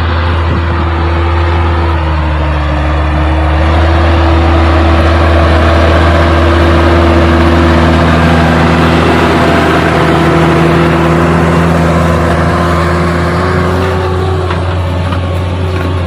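Case IH Puma 140 tractor's diesel engine running steadily under load while pulling a disc harrow, with a broad rushing noise over it. It grows louder through the middle as the tractor passes close, then eases near the end.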